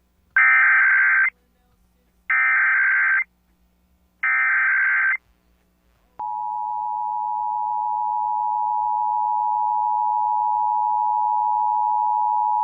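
Emergency Alert System signal on an FM radio broadcast: three SAME header data bursts, each about a second long and about two seconds apart, encoding a Required Monthly Test. About six seconds in, the steady two-tone EAS attention signal (853 and 960 Hz) begins and runs on.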